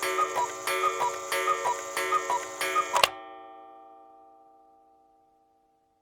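Cuckoo clock calling: about five two-note falling "cuck-oo" calls, each with a click of the mechanism, over a ringing chord. The calls stop about three seconds in and the ringing fades away over the next two seconds.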